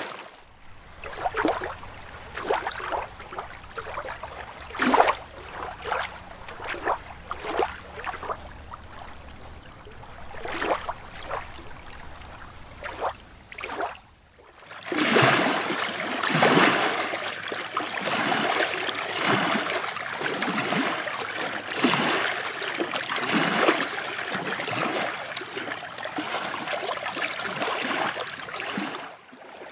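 Water splashing: scattered small separate splashes at first, then after a brief break about halfway through, a louder, continuous choppy splashing.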